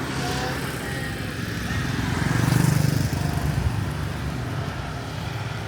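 A small motorbike engine passing on the street, growing louder to a peak about two and a half seconds in and then fading, over general traffic noise.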